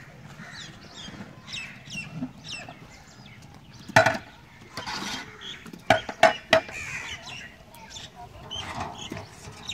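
Birds calling in a quick series of short, high, falling chirps, with a sharp knock about four seconds in and three more knocks in quick succession around six seconds.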